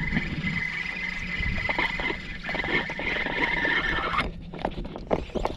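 Spinning reel's drag buzzing steadily as a hooked redfish pulls line off, stopping abruptly about four seconds in, followed by a few light clicks.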